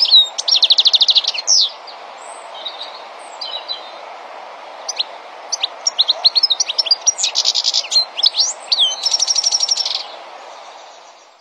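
European goldfinch twittering: quick liquid chirps and fast buzzy trills in bursts, quieter for a few seconds in the middle, fading out near the end, over a steady low background noise.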